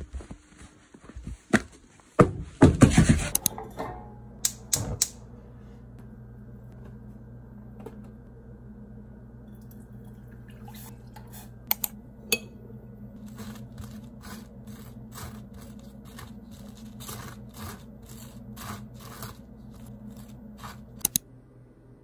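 A knife scraping butter across crisp toast in short repeated strokes, over a steady low hum. A few loud knocks and rustles come in the first few seconds.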